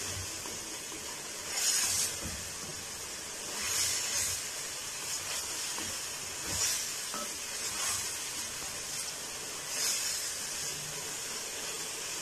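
Wet vegetable and spice mixture sizzling steadily in a metal kadai while a wooden spatula stirs it, with several brief scraping swells a second or two apart as the spatula sweeps the pan.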